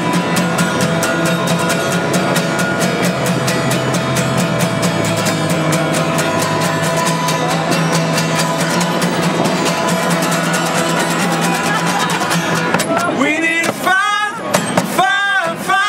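Two acoustic guitars strummed together in a steady, even rhythm. About thirteen seconds in, two male voices come in singing.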